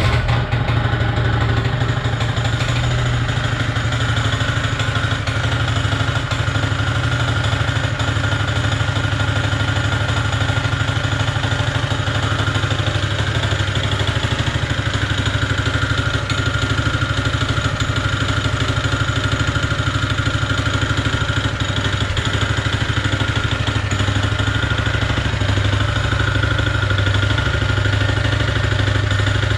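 Honda GX160 single-cylinder four-stroke engine on a concrete power trowel running steadily, with a rapid knock in the running. The knock is a worn joint between crankshaft and connecting rod, which leaves the machine unserviceable.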